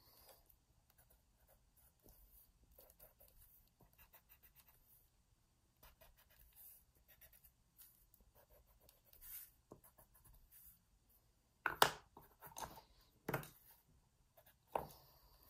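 Faint scratching of a colored pencil on paper in short strokes, drawing little dashes. A few sharper, louder clicks come near the end.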